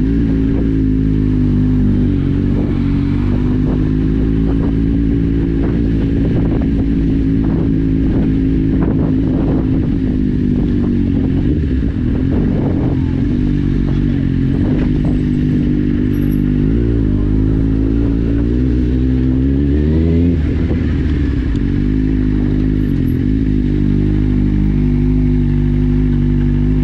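Kawasaki Z750 inline-four engine running at low revs through an Akrapovic exhaust with its dB killer removed, the revs wavering with small throttle changes at walking-pace speed. The revs rise briefly about twenty seconds in, then settle back.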